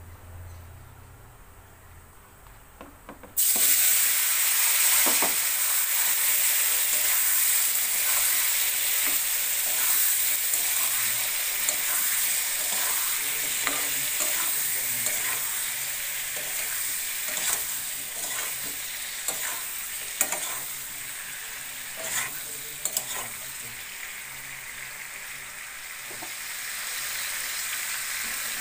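Boiled potatoes frying in hot oil in a kadhai: a loud sizzle starts suddenly about three seconds in as they go into the oil. It carries on steadily while a spatula scrapes and turns them, easing off somewhat later on.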